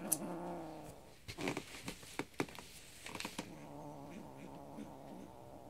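Domestic kitten giving a low, drawn-out growl with a toy in her mouth, then, after a spell of sharp scratchy clicks and rustles, a second long growl starting about halfway through.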